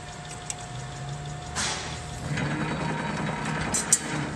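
Sheet-metal machine running steadily while perforated steel strap is fed into it. A rushing mechanical noise sets in about a second and a half in, and a few sharp metallic clicks come near the end.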